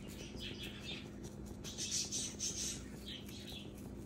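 Egg mixture sizzling and crackling in a dry, oil-free nonstick pan, with light scraping as a silicone spatula loosens the edges; the crackle comes in uneven spurts, loudest about two seconds in, over a low steady hum.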